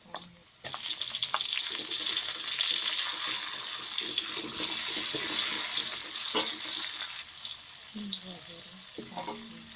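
Chopped shallot, garlic, chilli and tomato sizzling in hot cooking oil in a pan as they are stir-fried. The sizzle jumps up suddenly under a second in, stays loud for several seconds, then eases toward the end, with a few clicks of stirring.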